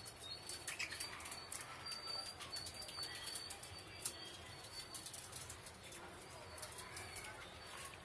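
Pet budgerigars chattering: short chirps over many small sharp clicks, with a thin high whistle through the first few seconds.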